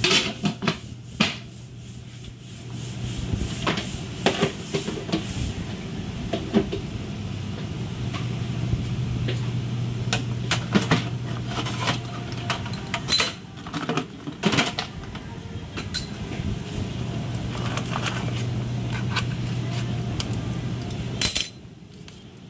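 Scattered clicks and clatter of metal utensils, a metal tray and hard shells as steamed lobsters and crabs are handled, over a steady low hum that drops out briefly a second or two in and stops near the end.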